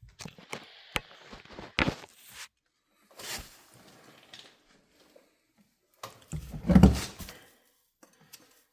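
Small-tool handling sounds: sharp clicks and brief scraping as a tiny screwdriver pries the old rubber O-ring off the oil filter housing, with a heavier thump about six to seven seconds in.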